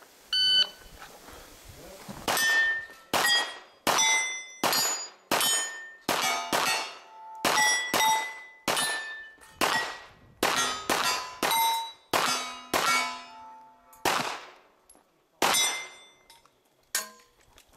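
A shot timer beeps once, then a rapid string of about twenty handgun shots follows, fired at steel targets. Each shot is followed by the ringing clang of a struck steel plate, the string stopping shortly before the end.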